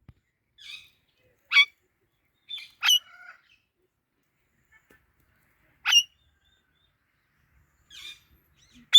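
Parakeets giving single short, sharp calls, about seven of them spaced out with long pauses between.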